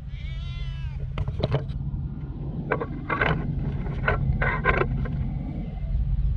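Stray cat meowing once, a short call that rises and falls, followed by several short scuffing noises over a steady low rumble.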